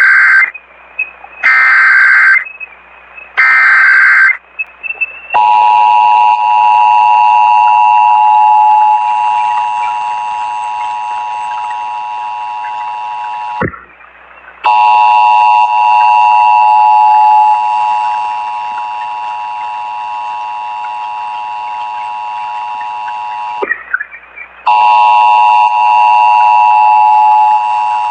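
Emergency Alert System broadcast for a Required Monthly Test, heard over AM radio. First come the SAME header's digital data bursts, about a second each and a second apart, the first already under way. Then comes the EAS two-tone attention signal (853 and 960 Hz), a steady two-note tone that plays in three long stretches of eight to nine seconds, each broken off by a gap of about a second, announcing the test message that follows.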